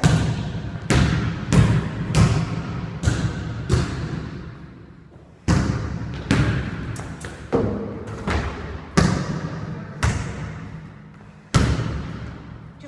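More than a dozen heavy thuds on a hard surface at uneven intervals, each ringing out with a long echoing tail, with a pause of about a second and a half after the first few seconds.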